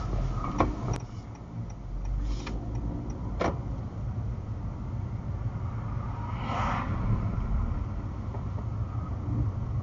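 A car's engine and road noise, heard from inside the cabin as a steady low rumble while the car pulls away from a stop and picks up speed. A few sharp clicks come in the first few seconds.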